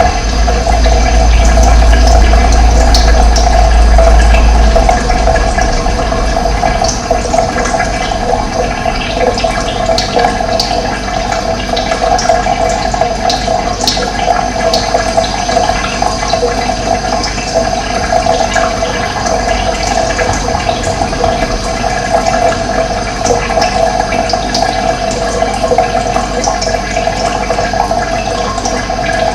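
Running water rushing steadily, with short bird chirps above it. A low rumble sits under the water for the first five seconds or so.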